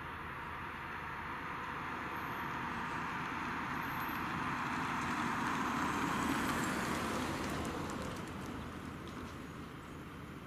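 Road vehicle driving by: an even rush of engine and tyre noise that swells to its loudest about six seconds in, then fades. No siren is sounding.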